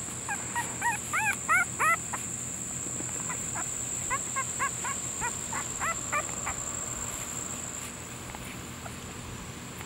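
Newborn English bulldog puppies squeaking and whimpering in short, high cries. The cries come in two runs of several each: the first in the opening two seconds, the second from about three and a half to six and a half seconds in.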